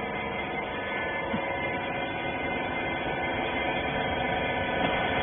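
Wiper-rag baler machine running with a steady hum made of many even tones, constant in level throughout.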